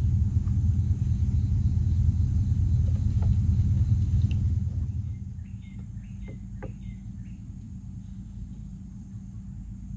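A steady low engine drone that drops away about five seconds in. After it, birds chirp in short calls, with a few light clicks.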